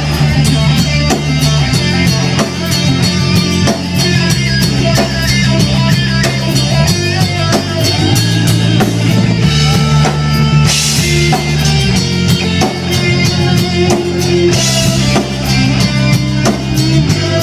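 Live rock band playing an instrumental passage: drum kit, distorted electric guitar and bass, with no vocals.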